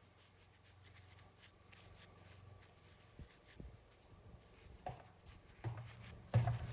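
Faint scraping with a few light knocks, growing into louder thumps and scrapes in the last two seconds.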